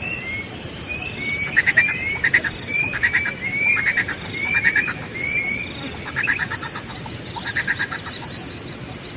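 Wild birds calling: a run of short, slurred whistled notes repeated over and over, with about six bursts of rapid rattling notes among them. Steady high-pitched insect trilling runs underneath.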